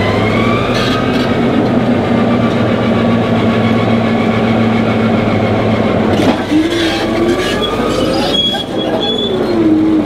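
Caterpillar D9H bulldozer's diesel engine running steadily as the dozer crawls onto a lowboy trailer. From about six and a half seconds in, its steel tracks squeal in wavering tones that rise and fall.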